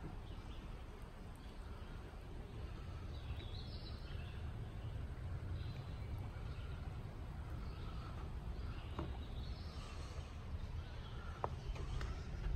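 Outdoor ambience: faint bird calls over a steady low rumble. Near the end come a few footsteps on the wooden plank footbridge.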